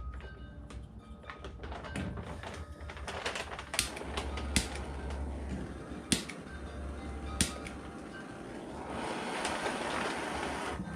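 Scattered sharp taps and clicks from work on a steel car body panel during heat shrinking. A steady hiss builds near the end.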